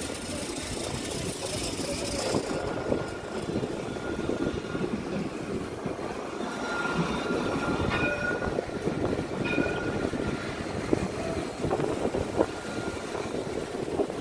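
Street tram passing close by: a steady rumble of its wheels on the rails, with faint thin tones above it from about the middle onward.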